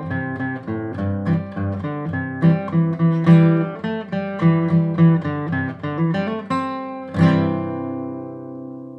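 Martin dreadnought acoustic guitar played solo, picking a melody over bass notes. It ends with a strummed final chord about seven seconds in that rings out and fades.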